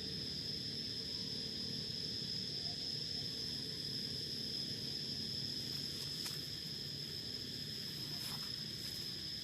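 Insects chirring in one steady high-pitched drone, over a low rumble, with two faint clicks in the last few seconds.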